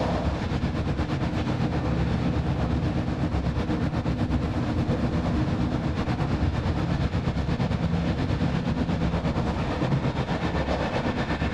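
Running noise of an Interregio passenger train heard from inside the coach: a fast, even rattle over a steady low rumble as the train rolls through the station approach tracks.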